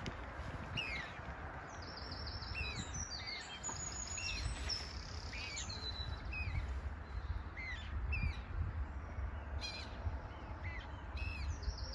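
Moorhen chicks peeping: short, high, arched calls repeating about once a second, with a few faster, higher trills mixed in.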